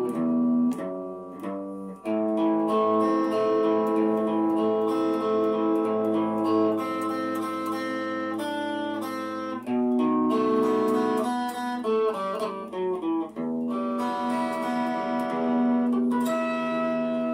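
Instrumental music led by a plucked guitar playing a melody of sustained notes.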